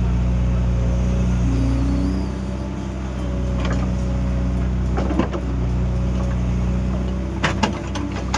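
Excavator's diesel engine running steadily, with a brief higher tone about two seconds in and a few sharp clanks around the middle and near the end.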